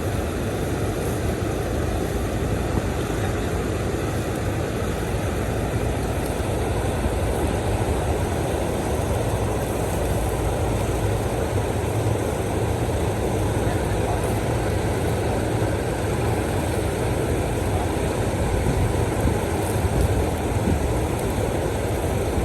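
Steady, unbroken low rumbling noise with a constant hum, like an engine running or wind on the microphone.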